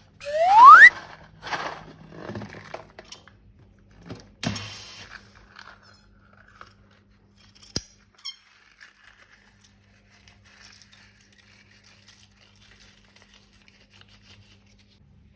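A single loud squeak of balloon rubber, rising in pitch over about half a second. It is followed by a few short rustling scrapes of handling and one sharp click, then faint handling sounds.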